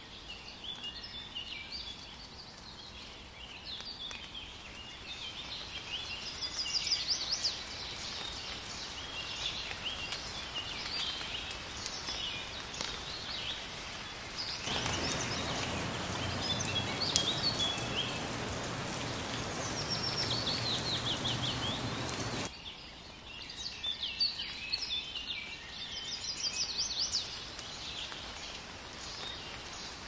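Wild birds chirping and trilling throughout, including a quick run of falling notes heard several times. About halfway through, steady rain comes in suddenly over the birdsong, then cuts off abruptly some eight seconds later.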